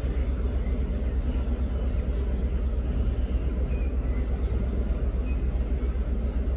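A steady low rumble, with a few faint short high chirps over it.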